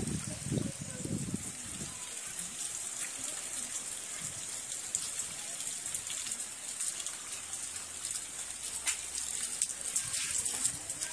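Rain falling steadily: a fine high hiss of rain with scattered drop ticks. A low rumble fades out about two seconds in.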